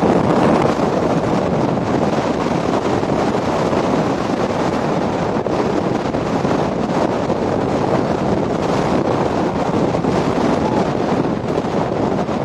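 Strong wind blowing across the camera microphone, a steady loud rushing noise.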